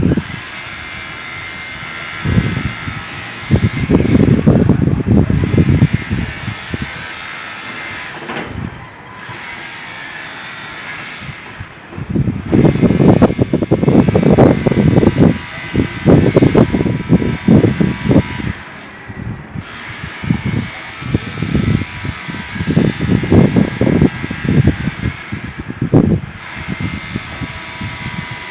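Demolition hammer chipping at concrete in runs of a few seconds that stop and start again, with a steadier machine noise in the pauses.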